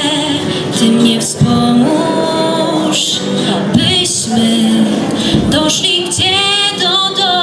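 Young woman singing a Polish Christmas carol (kolęda), accompanying herself on a strummed acoustic guitar.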